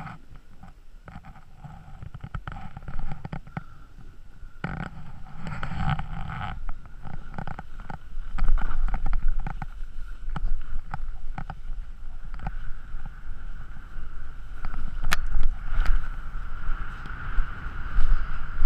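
Wind buffeting a GoPro's microphone and snow scraping under edges on a run down a packed, groomed slope, with a steady low rumble and a stream of short scrapes. It grows louder about eight seconds in as speed picks up.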